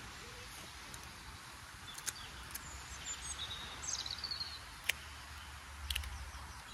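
Wind buffeting the microphone with a low rumble that swells near the end, small birds chirping high and thin in the middle, and a few sharp clicks.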